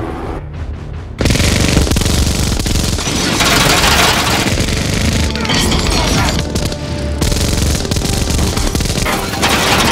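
A six-barrel M134 minigun firing a long, unbroken burst. The burst begins suddenly about a second in, with bullets hitting the police cars and a film score running underneath.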